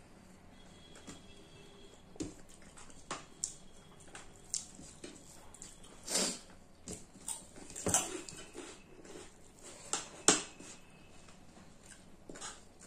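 Eating sounds: close chewing and mouth noises, with irregular sharp clicks of a spoon against a plate.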